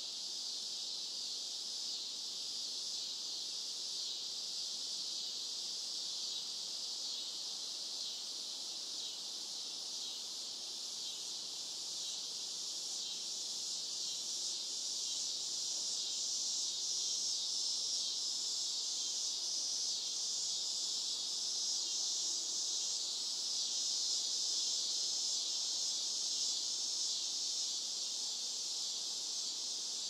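Cicadas singing in a dense chorus: a continuous high-pitched buzz with no pauses, swelling slightly louder past the middle.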